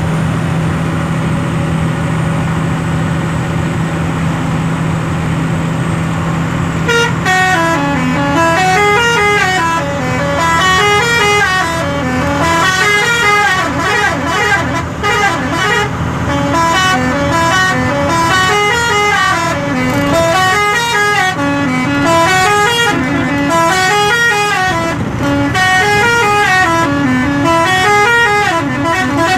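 Truck engine running steadily; about seven seconds in, a musical multi-tone 'Jodhpur' truck horn starts up and plays a tune of notes stepping up and down, repeated over and over.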